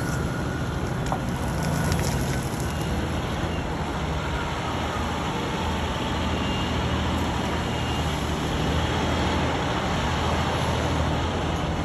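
Diesel engine of a Caterpillar 349E-based long-reach excavator running steadily under load while its hydraulics work the long boom, with a constant low hum.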